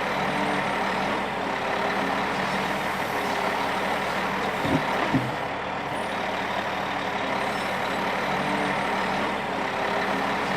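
Steady running of heavy machinery or a large diesel engine, with two short knocks about five seconds in.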